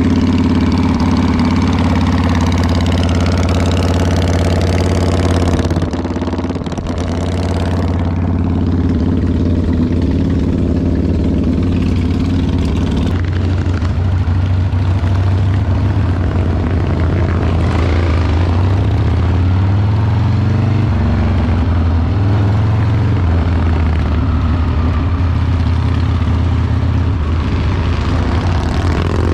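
V-twin chopper motorcycle engine idling steadily. About halfway through it gives way to a motorcycle engine heard from the bike while riding, its pitch stepping up and down with throttle and gear changes.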